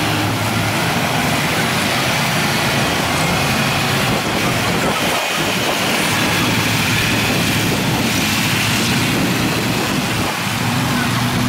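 Farm tractor engines running steadily as a line of tractors drives slowly past, one after another.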